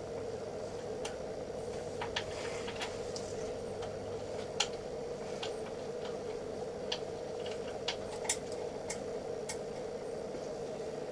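Irregular small metallic clicks and ticks of screws being driven and tightened with a hex key while a 3D printer frame is assembled, over a steady low hum.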